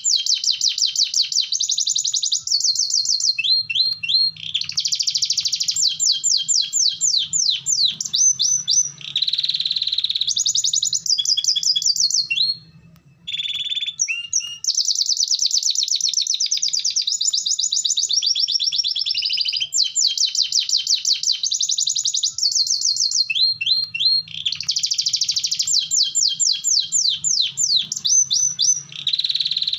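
Domestic canary singing a long, near-continuous song of rapid trills and rolls, with one brief break about thirteen seconds in.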